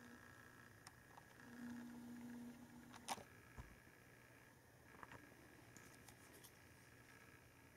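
Near silence: faint handling noise over a steady low room hum, with a brief low hum about a second and a half in, one sharp click about three seconds in, and a few light ticks later, as hands handle a strip of adhesive tape.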